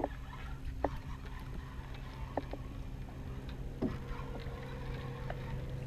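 Small fishing boat on calm water: a steady low hum with three sharp knocks about a second and a half apart, and a faint thin whine that starts about two-thirds of the way through and rises slightly.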